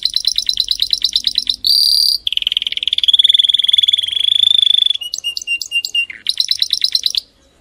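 Male canary singing: a string of fast, even, high trills, each held a second or more, with a short buzzy note about two seconds in and a few separate clipped notes around five seconds in. The song stops shortly before the end.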